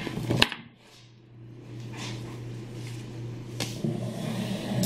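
A few light knocks and handling sounds, sharpest about half a second in and again near the end, from things being moved about at a table and chair, over a steady low hum.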